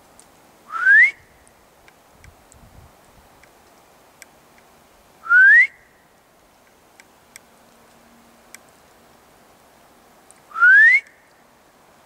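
A person whistling three loud, rising, breathy whistles, each under half a second, about five seconds apart: calls sent out into the swamp to draw a response.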